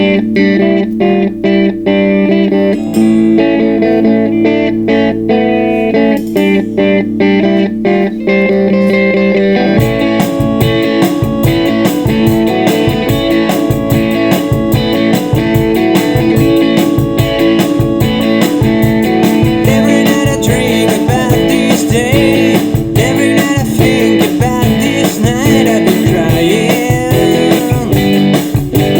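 Instrumental opening of a bluesy rock song: guitar and organ playing held chords with picked notes, then a drum kit comes in about a third of the way through and the band plays on together.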